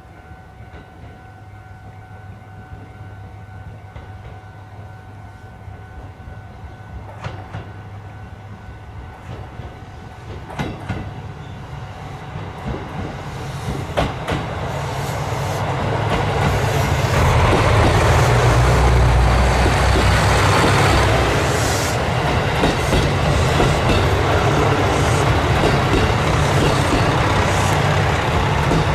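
A KiHa 200 series diesel multiple unit approaches at very low speed and passes close by. Its diesel engine rumble and wheel noise build until about halfway through, then stay loud and steady, with a few clicks of the wheels over rail joints as it nears.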